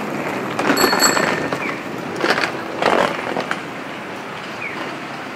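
Outdoor street sounds: a few short rattling clatters over a steady background noise, the last about three seconds in.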